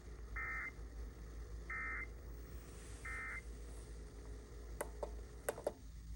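Emergency Alert System end-of-message data tones: three short identical bursts of warbling digital signal about a second and a half apart, closing a radio EAS test. A few sharp clicks near the end.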